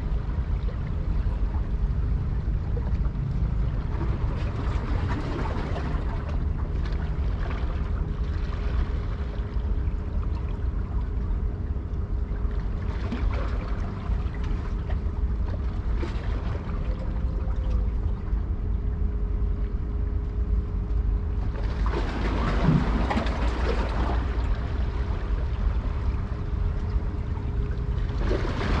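Steady low rumble of a ship under way, with a faint constant hum and a wash of water and wind noise that swells louder for a couple of seconds about three-quarters of the way through.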